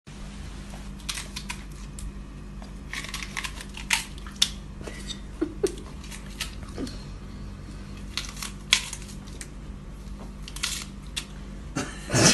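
A husky crunching and chewing a crisp green vegetable taken from a hand: irregular crisp crunches, a few louder than the rest, over a steady low hum.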